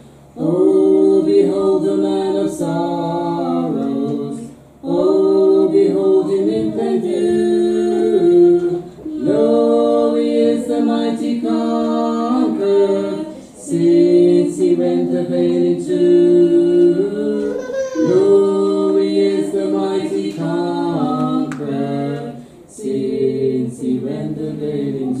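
A man and a woman singing a hymn together unaccompanied, in harmony, in long held phrases of about four to five seconds with a short breath between each.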